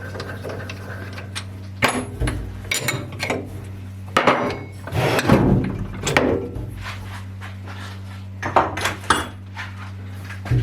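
Irregular metal clanks and knocks of a 10 mm steel plate workpiece being handled and clamped in a lathe chuck, over a steady low hum.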